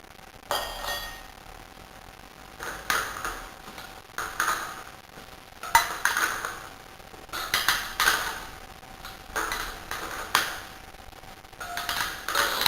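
Repeated metallic clinks with a short ring, about one every second or so, from metal tools and parts being handled during a rear tyre change.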